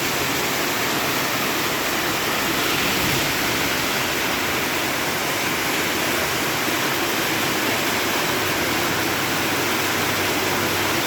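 Heavy monsoon rain pouring down steadily.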